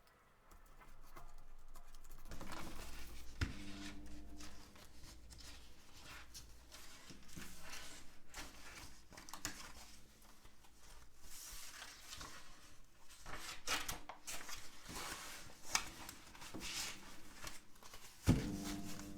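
Paper being handled on a desk: rustling, sliding and crinkling sheets with many small clicks, and two sharper knocks, one a few seconds in and one near the end.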